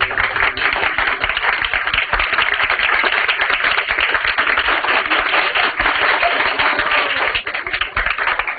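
Audience applauding, a dense patter of many hands clapping that thins out a little near the end.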